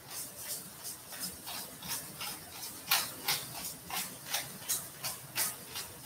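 Black pepper grinder being turned over a pan, giving a rhythmic train of short scratchy strokes, about three a second.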